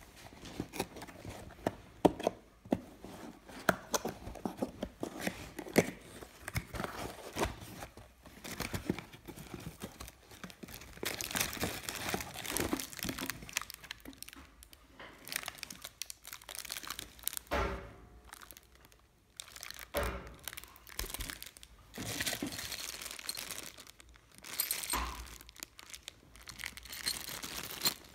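Unboxing handling: a cardboard box being opened and a headlight in a clear plastic bag lifted out, with plastic crinkling and rustling. Sharp knocks and clicks come mostly in the first several seconds, and longer stretches of crinkling follow.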